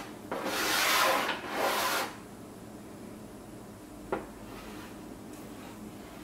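Chalk scraping across a chalkboard in two strokes over the first two seconds, then a single sharp tap of chalk on the board about four seconds in, followed by faint light strokes.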